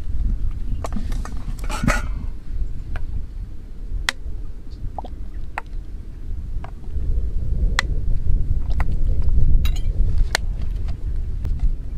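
Scattered sharp clinks of a metal spoon, bottles and jars against a ceramic bowl while green mango sauce is seasoned, about ten separate clinks. A low rumble of wind on the microphone runs underneath, growing louder after the halfway point.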